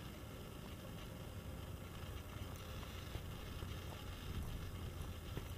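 Steady low wind rumble on the microphone, with a few faint footsteps of sneakers on concrete and gravel.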